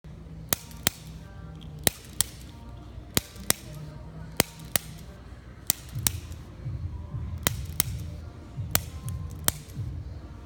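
Sharp clicks, mostly in pairs, a pair about every second and a quarter, from a spring-loaded chiropractic adjusting instrument being fired again and again during an adjustment.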